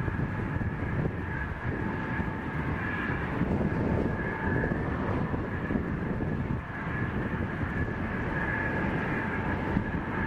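Twin-engine jet airliner at takeoff thrust as it lifts off and climbs out: a steady, broad engine rumble with a thin high whine running through it.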